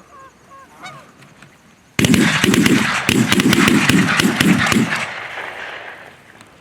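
Canada geese honking: faint calls at first, then a loud, close flock of honking that starts abruptly about two seconds in and fades away near the end.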